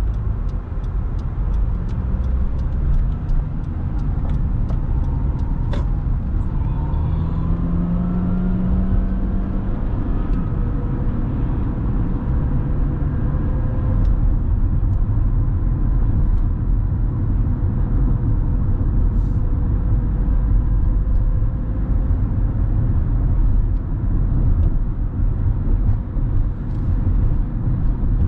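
Car being driven, heard from inside: steady road and engine rumble, with the engine note rising briefly about a quarter of the way through. A light, fast regular ticking runs through the first few seconds.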